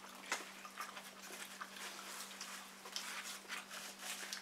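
People chewing and smacking their lips over burgers and fries: many small irregular mouth clicks, with a steady low hum underneath.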